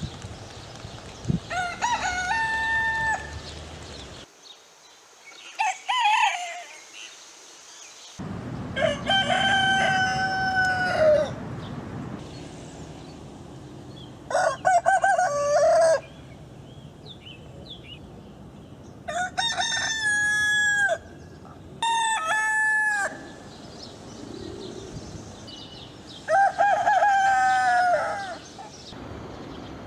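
Rooster crowing cock-a-doodle-doo about seven times, each crow one to two seconds long with a few seconds' gap between crows.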